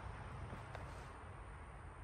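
Low steady background noise with one faint, short click about three-quarters of a second in.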